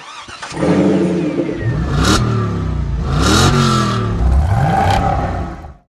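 Car engine sound effect revving up three times, its pitch climbing with each rev, with short rushing whooshes about two and three and a half seconds in. It cuts off sharply at the end.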